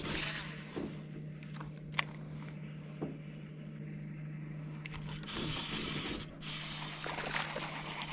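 Steady low hum of a boat motor, with scattered sharp clicks and short scraping, rustling noises from fishing gear being handled.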